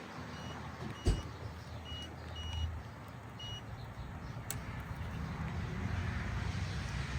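Short high-pitched beeps from a power-probe circuit tester touched to fuse terminals: five beeps of uneven length in the first four seconds. Each beep shows power on that side of the fuse, and a fuse that beeps on only one side is blown. A single knock comes about a second in, over a steady low rumble.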